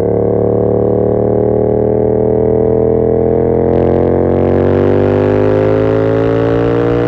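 2021 Yamaha MT-07's 689 cc parallel-twin engine, breathing through an aftermarket SC Project CR-T exhaust, pulling under steady acceleration in one gear, its pitch rising slowly. Wind noise builds from about halfway in.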